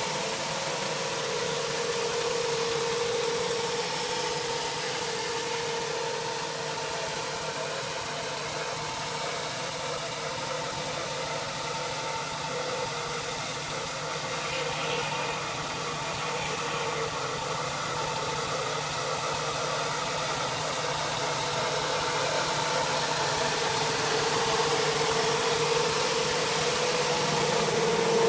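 Gas-engine pressure washer running steadily under the hiss of its high-pressure water spray. A steady engine hum sits under the spray, louder near the start and end.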